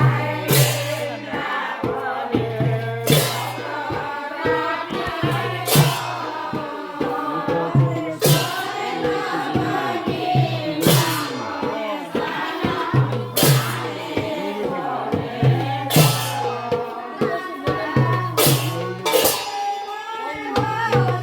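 Group of voices singing a Sylheti dhamail folk song with percussion, a sharp crash recurring about every two and a half seconds.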